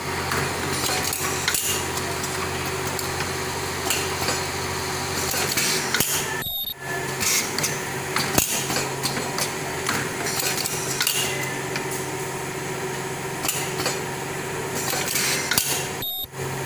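Automatic ultrasonic breathing-valve welding machine for folding respirator masks running: a steady mechanical din with a low hum and frequent metallic clacks from its moving parts. The noise drops out briefly twice, about six and a half seconds in and near the end.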